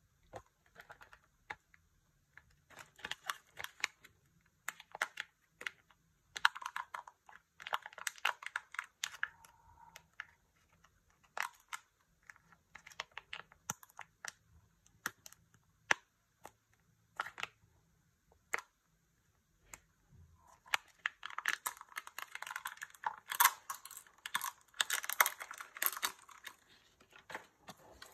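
A Kinder Joy egg being unwrapped by hand: the crinkle and tear of its thin wrapper with many sharp little plastic clicks, coming in short bursts, with the most continuous crinkling in the last few seconds.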